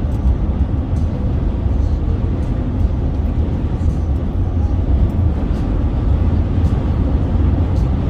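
Road noise of a car driving at highway speed, heard from inside the cabin: a steady low rumble of tyres and wind.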